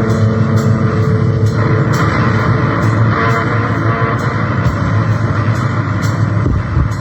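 Loud, dense distorted guitar music: held guitar notes over a thick wall of noise, with a steady pulse of sharp strokes about twice a second.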